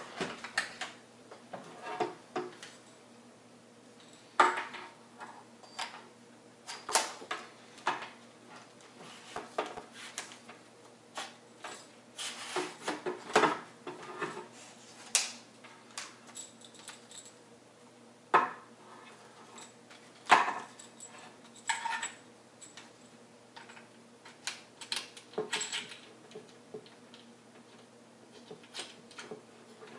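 Irregular clicks, knocks and light clatter as the shaft sections of a Garrett Ace 350 metal detector are handled and fitted back together.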